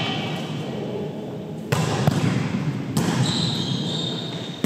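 Volleyball being struck during a rally on a hardwood gym court, with sharp impacts about two seconds in and again about three seconds in, echoing in the hall. A thin high squeak follows near the end.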